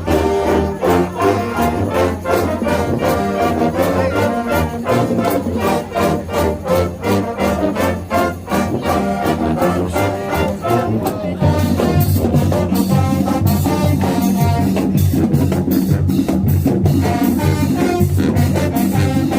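High school marching band playing, with trumpets and trombones over drums. A little over halfway through, the full band comes in louder with heavier low brass and bass drums.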